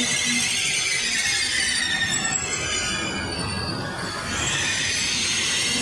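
Trenord TSR double-deck electric train moving along the platform with a low rumble and several high squealing tones. The squeal fades for a couple of seconds in the middle and comes back strongly near the end.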